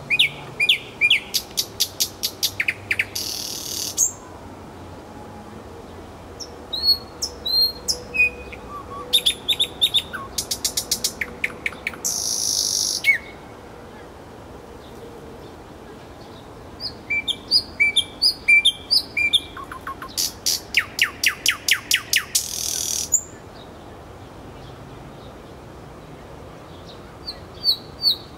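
Nightingale singing three song phrases a few seconds apart, with the start of a fourth near the end. Each phrase moves from short whistled notes into fast repeated clicking notes and ends in a dry rattling trill.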